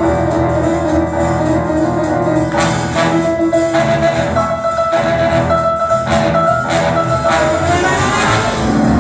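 A live swing band playing: keyboard, upright double bass, trombone and saxophones, with long held notes over the rhythm that ease off near the end.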